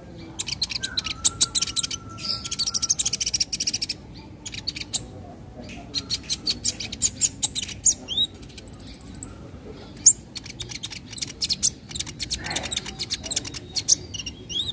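Kolibri ninja sunbird singing its crisp 'nyecret' chatter: fast runs of high, dry notes broken by short pauses, with a few sharp upslurred chirps and a brief high whistle midway.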